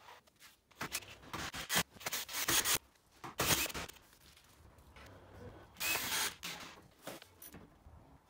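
Irregular rubbing, scraping and knocking as a cordless drill and a spirit level are handled against a PVC door frame.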